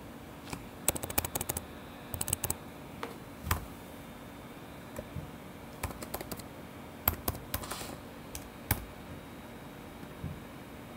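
Typing on a computer keyboard: a quick run of keystrokes about a second in, another short run just after two seconds, then scattered single key presses.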